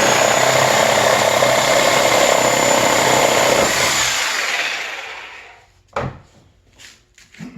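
Reciprocating saw (sawzall) running and cutting through a wooden pallet, steady and loud, then the motor winds down about four seconds in. A single sharp knock follows, then a few light clicks.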